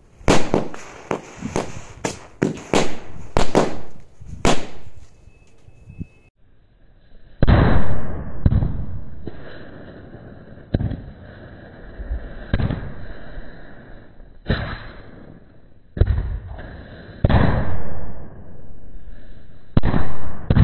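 A string of small firecrackers (a ladi) going off on snow: a fast run of about ten sharp bangs, then after a short pause about eight more bangs, further apart and each with a longer, duller tail.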